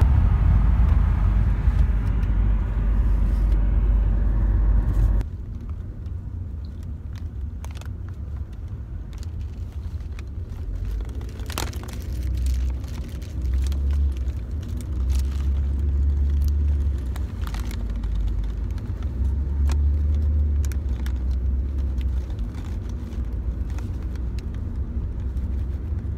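Low, steady road rumble inside a moving car's cabin. After a cut about five seconds in, the rumble carries on more quietly under scattered crinkling and rustling of a paper bag being crumpled in the hands.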